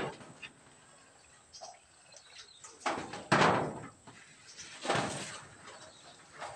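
A few separate chopping knocks, a blade striking down on a wooden stump: two close together about three seconds in, a third about a second and a half later.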